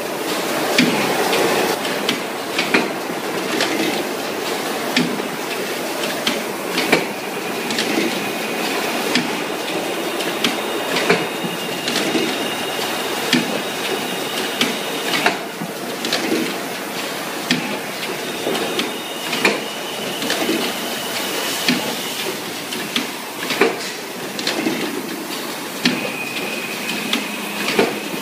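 Automatic rotary blister sealing machine running: a steady mechanical clatter broken by frequent sharp clanks as the indexing table and sealing presses cycle. A high whine comes and goes several times.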